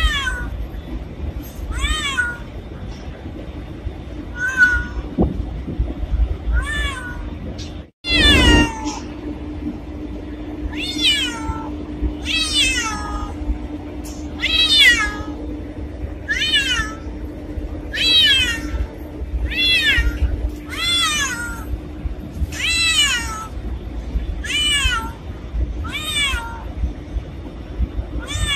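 A domestic cat meowing over and over, about one meow every one to two seconds, each call falling in pitch. The sound cuts out for an instant about eight seconds in.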